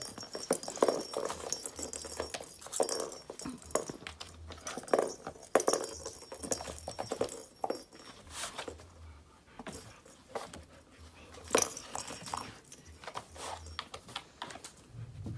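A dog working at a cardboard cat toy with balls inside: irregular knocking, clattering and rattling as it paws and tears at the toy.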